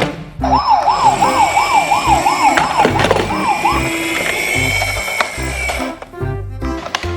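A siren wailing up and down quickly, about two and a half rises and falls a second, over a hiss. The wail stops after about three seconds, and the hiss with a steady high tone runs on until nearly six seconds in.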